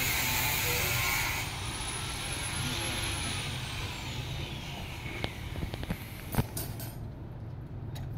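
Steel tie wire being twisted onto rebar with a tying hook: a few sharp metal clicks from about five seconds in, the loudest just after six seconds. Under it a steady low background rumble, with a high whine early on that falls in pitch over a few seconds.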